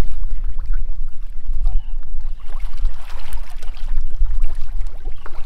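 Wind rumbling on the microphone: a loud, uneven low rumble that rises and falls throughout.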